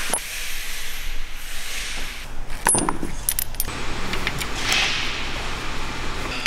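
Metallic clinks and rattles of spark plugs and hand tools being handled on a tool cart and at the spark plug wells of an engine's cylinder head, with a cluster of sharp clinks a little under three seconds in.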